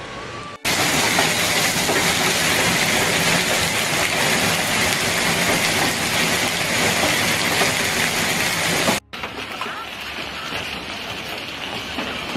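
Heavy hail pelting a paved street and trees, a loud, dense, steady clatter that starts abruptly about half a second in. It cuts off sharply near the end, giving way to quieter hail and rain falling on a parked car.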